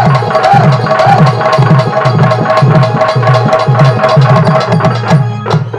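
Live stage accompaniment: a hand drum played in a fast, driving rhythm under steady held melody tones. The music stops just before the end, leaving a few last drum strikes.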